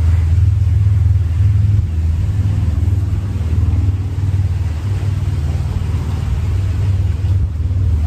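A loud, steady low rumble with a faint even hiss above it.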